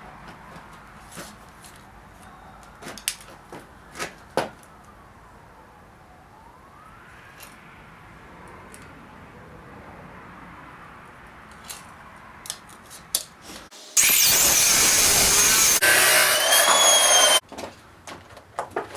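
Scattered clicks and knocks of steel parts being handled, then about fourteen seconds in a power tool cuts the steel angle iron for about three seconds: a loud grinding with a high whine, stopping abruptly.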